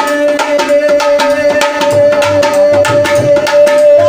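Instrumental break in a Hindi devotional song: dholak hand-drumming in a fast, steady rhythm over a long held melody note, with a low bass line coming in about halfway.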